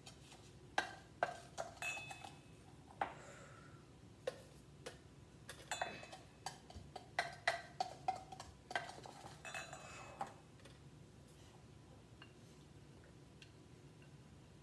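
Half-cup measuring cup and glass bowl clinking and tapping as bath salts are scooped out and tipped into a glass jar. The irregular clinks last about ten seconds, then stop.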